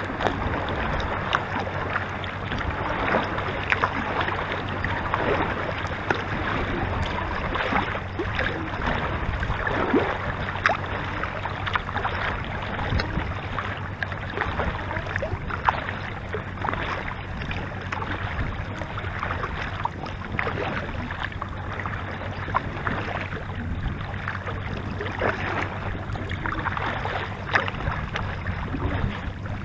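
Water splashing and lapping against a paddled kayak's bow, a steady wash broken by many small irregular splashes.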